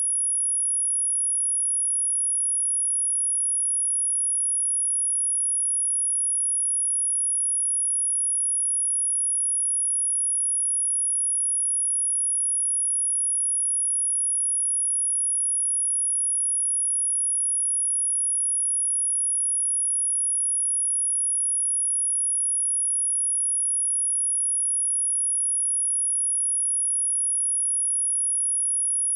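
A single electronic sine-wave test tone at 10332 Hz: one steady, very high-pitched whistle that holds without change in pitch or loudness.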